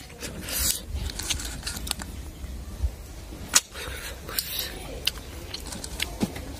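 Mouth noises of eating freshwater snails (ghonghi): sucking the snail meat out of the shell and chewing, heard as short slurps and wet clicks at irregular intervals.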